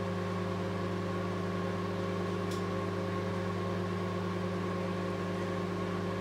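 700-watt microwave oven running, giving a steady electrical hum as it heats a ready meal, with one faint tick about halfway through.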